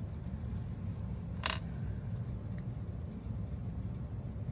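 Steady low background hum with one short, sharp click about a second and a half in, as a small plastic squeeze bottle of Stickles glitter glue is handled and squeezed.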